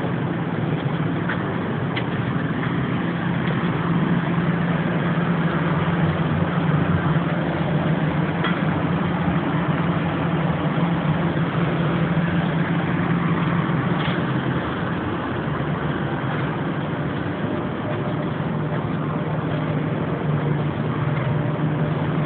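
Steady machine hum, like an engine or motor running at an even speed, with a few faint ticks.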